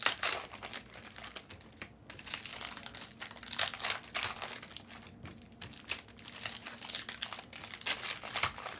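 Trading card pack wrappers crinkling and tearing as packs are opened, with irregular short crackles and rustles throughout.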